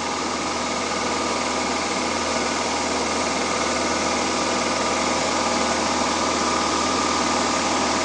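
Honda EU7000iS fuel-injected inverter generator running steadily in economy mode, a continuous engine hum.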